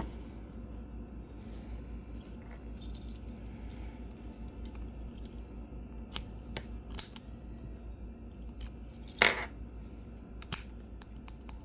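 Scattered small metallic clicks and clinks of lock-picking tools and a Master Lock 4150 padlock being handled as a tension wrench and pick are readied, with one louder, longer rattle about nine seconds in.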